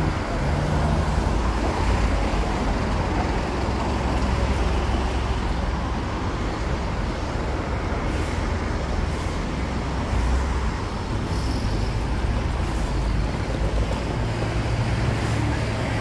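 Road traffic: cars and buses running past with a steady low rumble.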